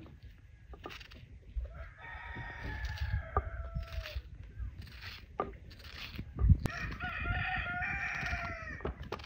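A rooster crowing twice, each a long call that drops in pitch at the end. Under it, a knife crunches through an onion held in the hand in short crisp cuts, with a single thump just before the second crow.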